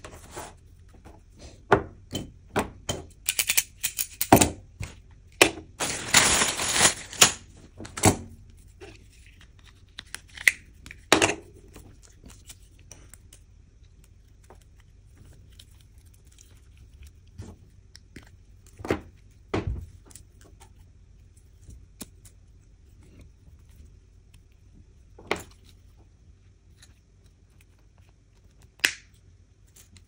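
Cable stripper clicking and scraping on an Ethernet cable's outer jacket, with a dense scraping rasp from about six to eight seconds in as the jacket is worked off. After that, quiet handling of the wires broken by a few sharp clicks and knocks, the loudest about twenty seconds in.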